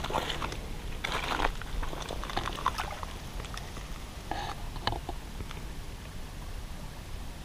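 Crunching and scraping on the loose rock of a lakeshore, then brief water splashing as a bass is held in the shallows and released.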